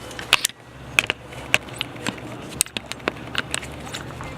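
Scattered sharp clicks and taps at an irregular pace, a few a second, over a faint steady low hum.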